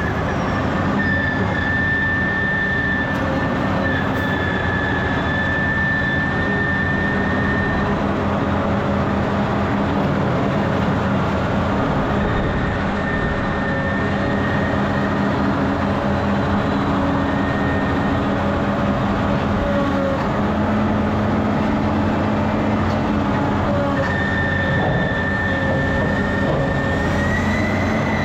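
Heavy diesel earthmoving machine running steadily under load, a deep engine rumble with a high whine that fades out and comes back and wavers slightly in pitch.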